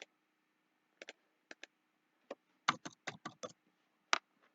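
Computer mouse and keyboard clicks: a few single and double clicks, then a quick run of keystrokes a little after halfway, and one more click near the end.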